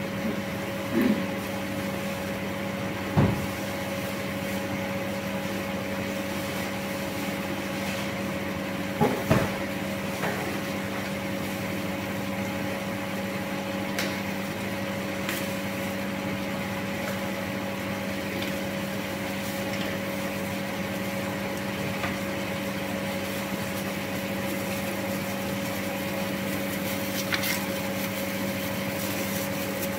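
A kitchen appliance humming steadily, a motor or fan sound with a few fixed tones, with a few light knocks of kitchen utensils, two of them close together about nine seconds in.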